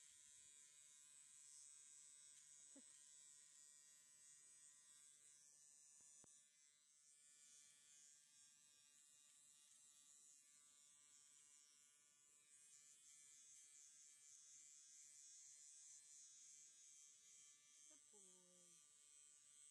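Small electric horse clippers buzzing steadily and faintly while trimming the whiskers and hair on a horse's muzzle. A brief sliding, voice-like sound comes near the end.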